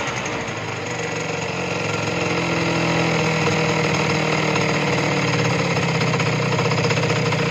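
Junak 806 scooter's 50 cc two-stroke engine idling steadily, its idle speed just set on a new carburettor that no longer floods.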